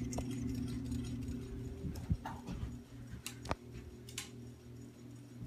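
Heritage Alexis series ceiling fan's motor humming steadily on high, with several sharp clicks from its pull-chain switch about two to four seconds in, after which the hum becomes quieter.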